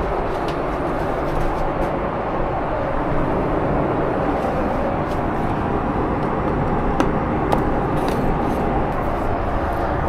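Steady cabin roar of a Boeing 747-8 airliner in flight, engine and airflow noise, with a couple of light clicks about seven seconds in.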